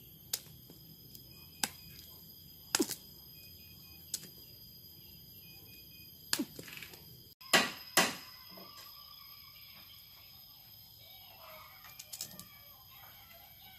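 Sharp snaps and knocks, scattered and irregular, as cassava roots are broken off a freshly dug stem clump, with two louder knocks close together a little past halfway. Later comes faint scraping and small clicks of a knife peeling a cassava root.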